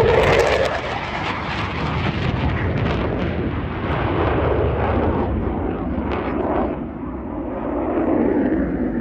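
F-15 fighter jet's twin turbofan engines on a low pass and pull-up climb. A heavy jet rumble is loudest at the start, and its high end fades as the jet climbs away.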